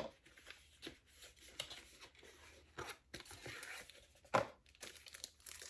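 Product packaging being opened by hand: scattered soft clicks and rustling as the wrapping is torn and handled, with one sharper click about four seconds in.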